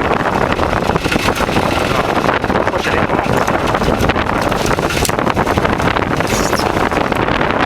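Tractor engine running steadily, with gusty wind buffeting the microphone.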